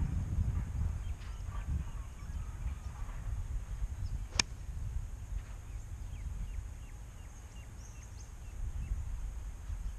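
A single sharp crack of a 4-iron striking a golf ball, about four seconds in, over a steady low rumble of wind on the microphone and scattered bird chirps.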